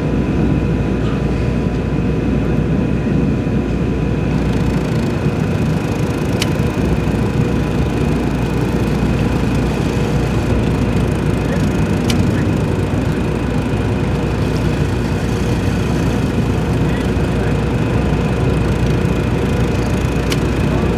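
Steady low rumble and hiss of a 1974 broadcast audio feed with no one speaking, with a faint high steady tone and three light clicks spread through it.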